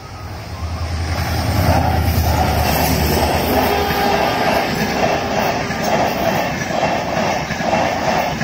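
A WDP4D diesel locomotive's EMD two-stroke engine drones low as it approaches and passes at speed, growing louder over the first second or so. From about four seconds in, the coaches rush past with a regular clatter of wheels over the rail joints, about three beats every two seconds.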